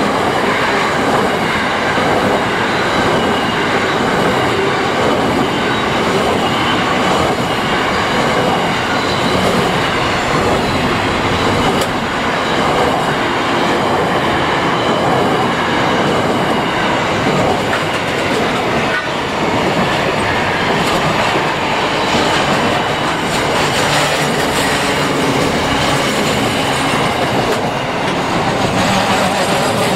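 Train rolling past: a steady rumble of wheels on rail with a clickety-clack over the rail joints.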